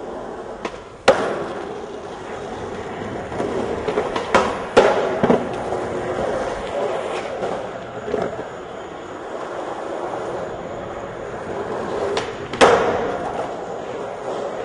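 Skateboard wheels rolling on a concrete parking-garage deck, with sharp clacks of the board against the ground about a second in, twice close together around four to five seconds, and once near the end.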